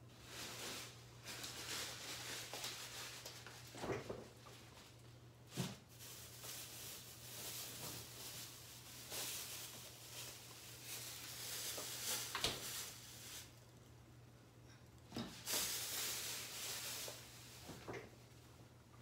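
Faint hiss from a covered pan of crab in coconut cream heating toward the boil on an electric stove, swelling and fading in waves over a steady low hum. A few sharp knocks break in, about four seconds in, near six, twelve, fifteen and eighteen seconds.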